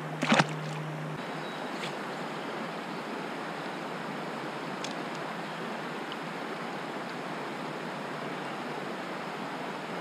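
Steady rush of flowing river water around the kayak, with one short, sharp loud sound about a third of a second in.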